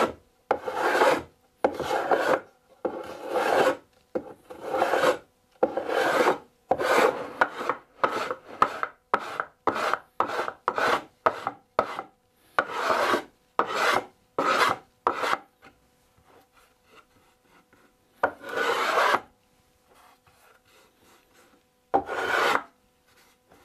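Miniature hand plane shaving heat-activated edge banding down flush with a plywood edge, stroke after stroke. There is a steady run of quick strokes for about fifteen seconds, then a pause and two last strokes.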